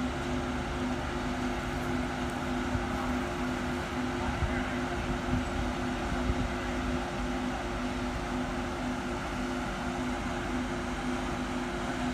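A steady mechanical hum, as of an idling engine, holding one pitch with a slight pulse, over a bed of faint indistinct voices.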